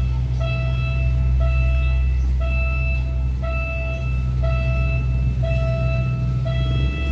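Railway level-crossing warning alarm sounding a repeating electronic tone, about one long beep a second. Under it runs a steady low engine hum that stops near the end.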